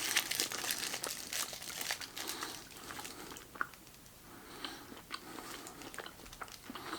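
Wrapper crinkling for the first couple of seconds, then a bar of Schwarze Herren dark chocolate being bitten and chewed, with scattered small crunches.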